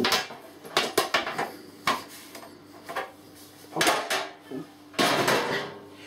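Metal clinks and knocks from handling a microwave oven's sheet-metal casing and parts: a string of separate sharp hits about a second apart, a cluster near four seconds in, and a longer clatter about five seconds in.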